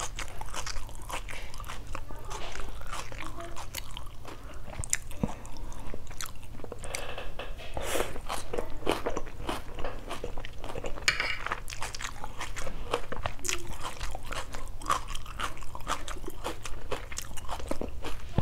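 Close-miked chewing of a shredded chicken salad with raw sliced onion and pickled chilies: a steady run of small wet crunches and mouth clicks.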